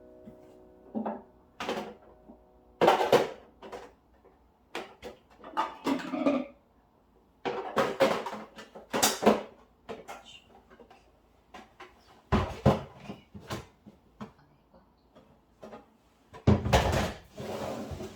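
Kitchen cleaning sounds: an irregular string of knocks and clatters as things are handled and set down, with cupboard doors opening and closing, and a longer scraping, rustling stretch near the end.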